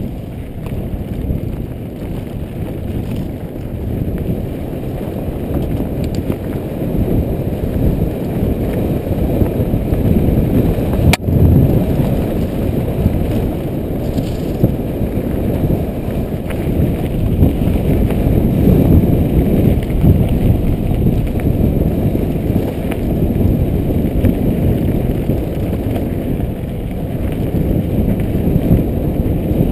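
Specialized Demo downhill mountain bike rolling fast over a dirt trail, heard from a helmet-mounted camera: a steady low rumble of tyre and wind noise with small rattles. A sharp click sounds about eleven seconds in.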